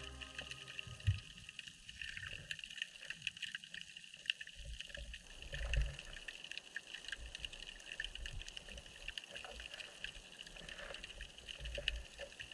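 Underwater ambience heard through a GoPro housing in shallow seawater: a steady hiss peppered with many faint clicks, with low rumbling surges of water about a second in, just before the six-second mark and near the end.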